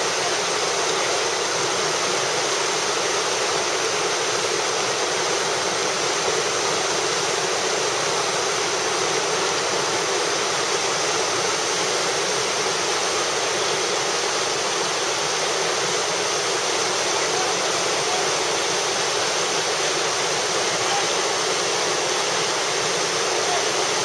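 Whitewater rapid rushing steadily, a dense, even roar of churning river water.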